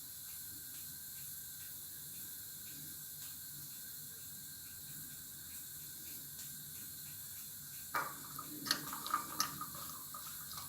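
Faint steady hiss, then from about eight seconds in a few light clinks and scrapes of a spoon against a cup as honey is spooned onto chopped radish.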